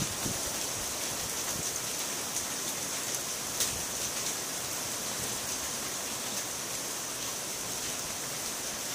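Heavy typhoon rain pouring steadily onto corrugated roofs: a dense, even hiss with scattered louder drop ticks, one standing out about three and a half seconds in.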